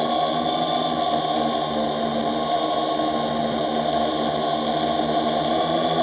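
Drone's electric motors and propellers whining steadily in flight, a constant layered hum with several high tones held at an even pitch.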